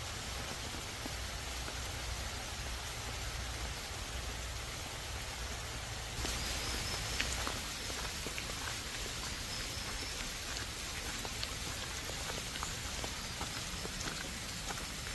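Steady heavy rain falling on forest foliage. From about six seconds in, individual drops strike close by as sharp scattered ticks over the steady hiss.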